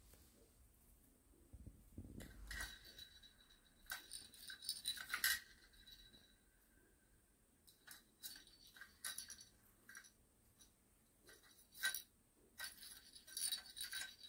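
Small bell inside a plastic cage ball toy jingling in short bursts as a kitten paws and bats the ball about.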